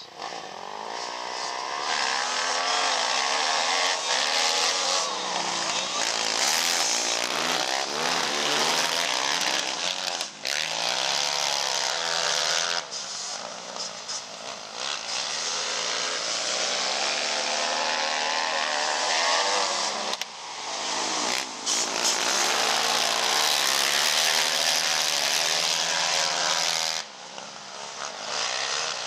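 A pack of racing ATV engines revving hard, their pitch rising and falling as the quads pass the trackside in waves. The sound drops away briefly about 13 and 20 seconds in and falls off near the end.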